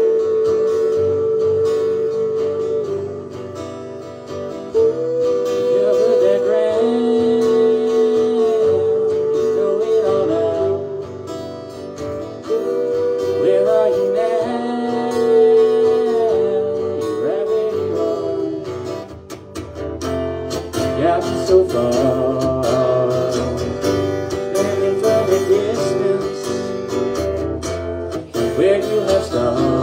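Live acoustic duo: two acoustic guitars played with singing, long held notes in the first part and busier strumming from about twenty seconds in.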